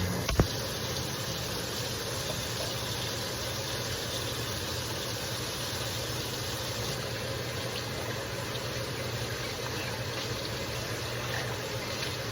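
Kitchen tap running steadily as a dirty cup is rinsed out, with one sharp clink about half a second in.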